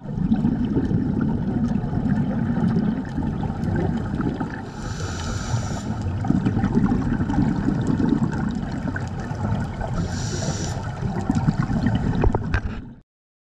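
Underwater sound on a scuba dive: a steady low rumble of water with scattered crackling, and two short hissing breaths through a scuba regulator, about five seconds in and again about ten seconds in. The sound cuts off suddenly just before the end.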